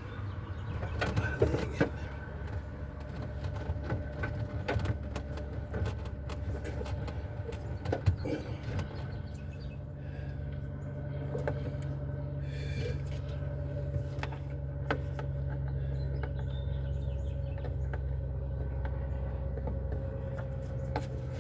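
Scattered small clicks and knocks of hands and tools working at a grommet and trim inside a car's trunk, over a steady low mechanical hum.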